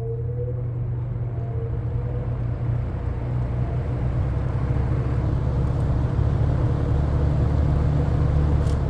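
Lakewood P-25 20-inch box fan running on medium speed: a steady motor hum under a rush of air that grows steadily louder as the blades spin up.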